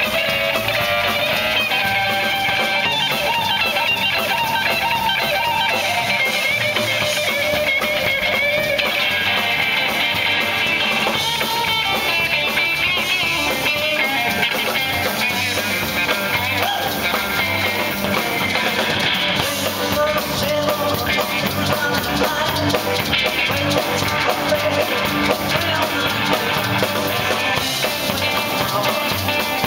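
Live rock and roll band playing an instrumental passage, with an electric guitar taking the lead over drums.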